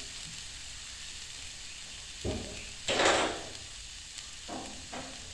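Chopped garlic, ginger and curry leaves sizzling gently in coconut oil in a nonstick frying pan on low heat, with a few short louder swells of sound, the strongest about three seconds in.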